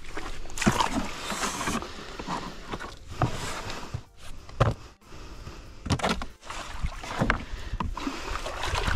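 Irregular sloshing and splashing of water, with a few sharp knocks.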